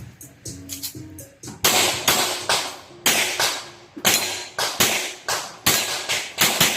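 Rapid string of gunshots in a practical shooting stage, about ten shots coming roughly every half second, each followed by a short echoing decay.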